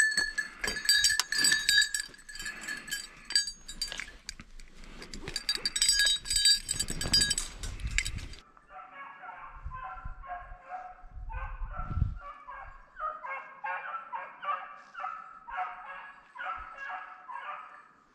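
Metallic jingling and rattling for about the first half. Then beagles baying on a snowshoe hare's track: a long run of short, pitched hound calls.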